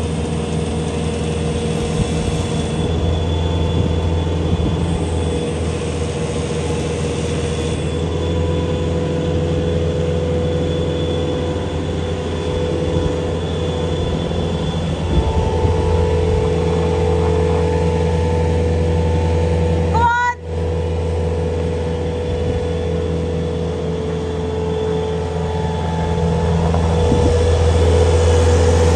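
Diesel engine of farm machinery running steadily at constant speed, with a very brief cut about two-thirds of the way through.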